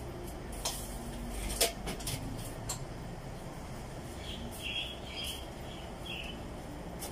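A person chewing a mouthful of food close to the microphone, with wet mouth clicks and smacks. The sharpest click comes about a second and a half in.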